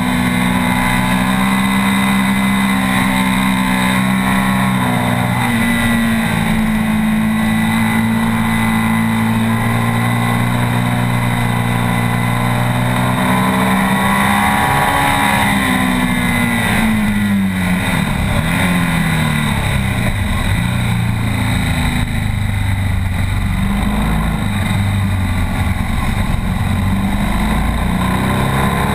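BMW R 1200 S's air/oil-cooled boxer twin at speed, heard onboard with wind rush. The engine note holds high and steady, falls in several curves around the middle as the bike slows through the gears, then climbs again in steps through the upshifts near the end.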